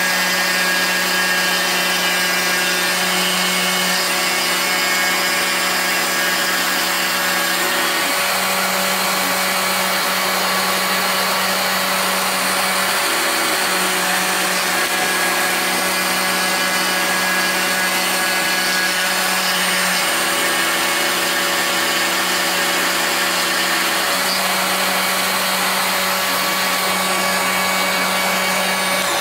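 A CNC router milling wood: its Proxxon IBS/E rotary-tool spindle runs steadily as the cutter works through plywood, over the low hum of the stepper motors. The hum changes every few seconds as the axes start and stop moving.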